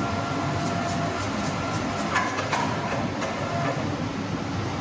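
Steady machinery running on a slaughterhouse floor, with a run of light clicks and two sharper knocks in the first half.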